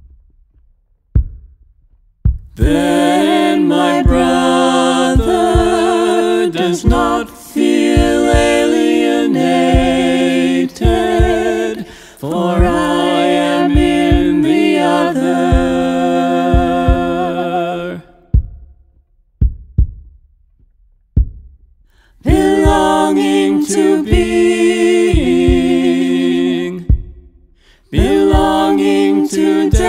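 Several voices singing a cappella in close harmony, in long sustained phrases with pauses between them. Soft low thumps sound in the pauses.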